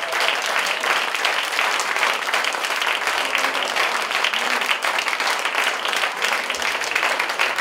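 Audience applauding steadily, a dense stream of many hands clapping.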